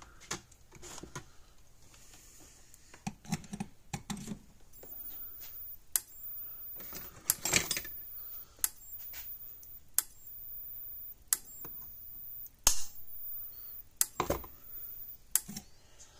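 Power Wizard PW18000 18-joule fence energizer firing, a sharp snap of each high-voltage pulse about every 1.3 seconds, showing that the repaired unit is working. Irregular knocks and rustles of hands and tools handling it are mixed in.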